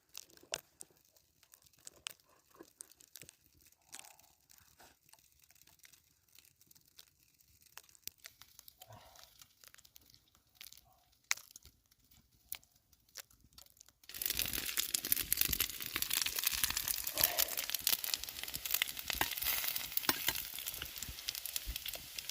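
Soft rustling and scattered small clicks, then about fourteen seconds in a loud, steady sizzling of food frying over a fire starts abruptly.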